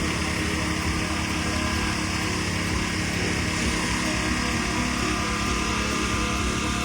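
An engine running steadily with a constant drone, never breaking or changing over the few seconds.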